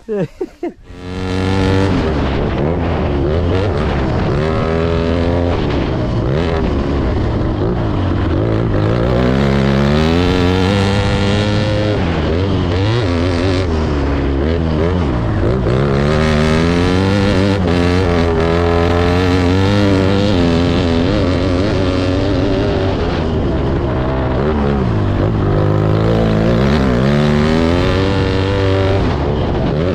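BNH Triumph motocross bike's engine heard onboard during a hard lap of a dirt track, cutting in about a second in. The engine pitch keeps climbing as it revs out and then dropping sharply, over and over, as the rider accelerates, shifts and backs off for corners.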